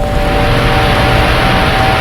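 A loud, steady rushing noise over a steady hum of a few low tones.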